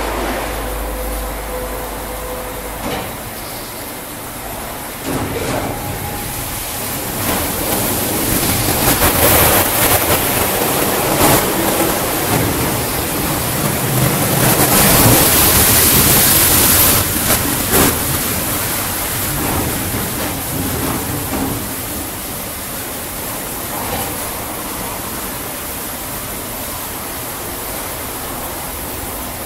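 Wesumat Soft Wash rollover car wash running: the rotating brush swishes over the car amid water spray and the machine's motors. The hissing grows loudest about a third of the way in, then settles to a steady rush.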